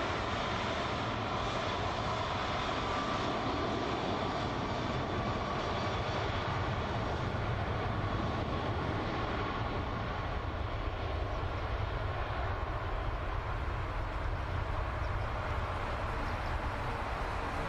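Jet airliner engines in flight: a steady rushing drone with a faint whine in it, unchanging throughout.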